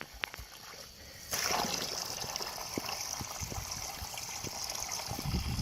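Running water starts suddenly about a second in and keeps flowing steadily with a hiss, with a few small knocks and clicks.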